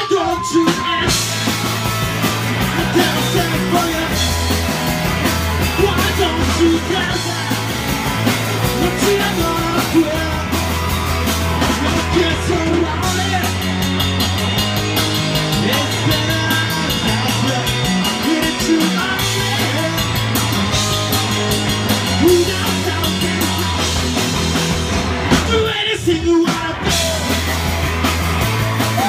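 Live punk rock band playing loudly in a small club: electric guitar and drum kit with singing. The cymbals and high end drop out briefly just after the start and again about 26 seconds in, while the band keeps going.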